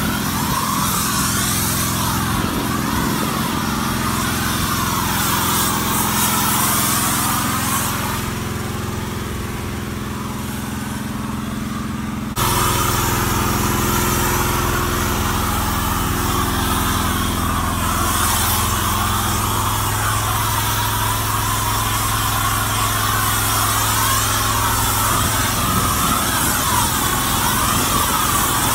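Pressure washer's small engine running steadily while a foam cannon sprays soap onto a semi truck, with a hiss of spray over the engine drone. The sound changes abruptly about twelve seconds in.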